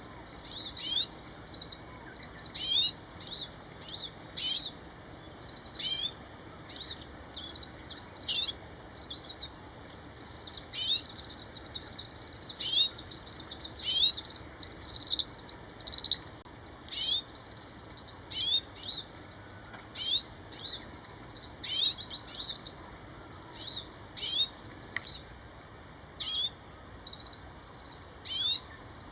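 Oriental greenfinch calling over and over in short, twittering, sweeping notes, with a longer buzzy trill about ten seconds in.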